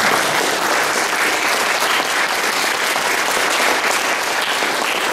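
Loud applause from an audience, many hands clapping together without a break.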